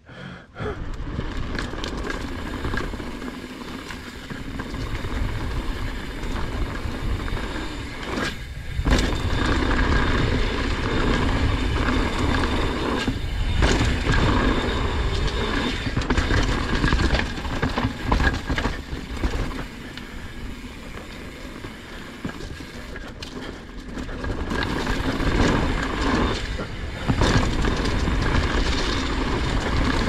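Mountain bike riding down a dirt trail: a continuous rumble of knobby tyres over packed dirt, rocks and dry leaves, with the bike rattling over bumps and occasional sharp clatters.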